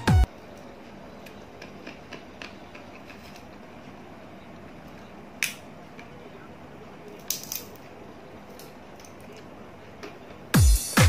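Sunflower seed shells cracking between teeth and fingers: scattered small sharp cracks over faint room noise, the loudest about five seconds in and a quick cluster of them about seven seconds in. An electronic dance beat cuts off at the start and comes back in near the end.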